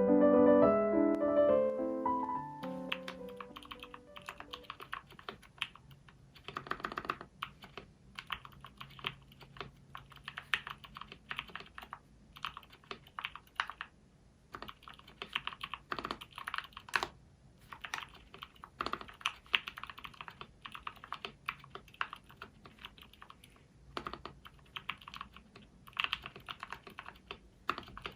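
Typing on a 60% mechanical keyboard with lubed SP-Star Purple switches on a DZ60 PCB in a KBDfans Tofu acrylic case: a steady, irregular run of key clacks, with a few louder single strokes among them.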